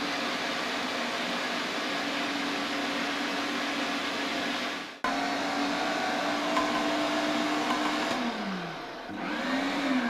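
Philips electric meat mincer running steadily as it grinds chunks of raw meat, a motor hum with whirring noise. It breaks off for an instant about halfway. Near the end the motor winds down in pitch, spins up briefly once more and winds down again.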